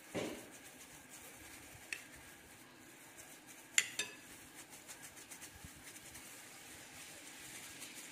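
Metal spoon clinking against a glass bowl, two or three sharp ringing clinks about two and four seconds in, after a dull knock at the start. Around them is the soft scraping and squishing of fish paste being packed into bitter melon pieces by plastic-gloved hands.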